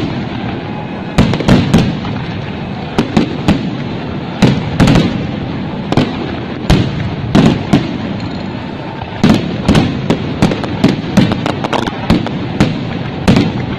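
Aerial fireworks shells bursting overhead in a rapid, irregular run of sharp bangs, several often close together, over a continuous background rumble.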